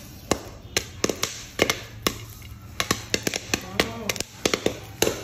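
Popcorn kernels popping in a pot over a fire: sharp, irregular pops, about three a second.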